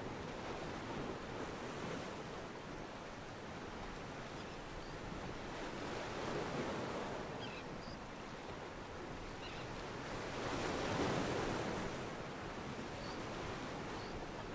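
Ocean water washing against a pier, a stock sound-effect ambience track, as a steady wash of noise that swells louder twice, near the middle and again about three-quarters through.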